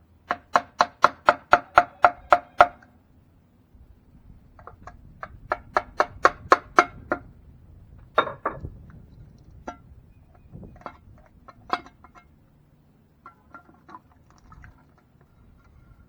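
Rapid hammer blows on metal, about four a second, in two runs of around ten strikes each, every blow ringing. A few scattered knocks and clicks follow.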